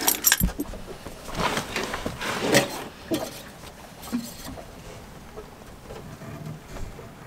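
Scattered small clicks, knocks and rustling of hands working in an engine bay: the oil dipstick is drawn from the engine and wiped with a cloth. The sounds are busiest in the first few seconds and quieter after.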